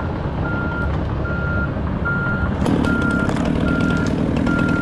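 Reversing alarm on a heavy vehicle beeping steadily, six beeps about 0.8 s apart, over a running engine. About two and a half seconds in, the engine grows louder and clattering and rattling join in.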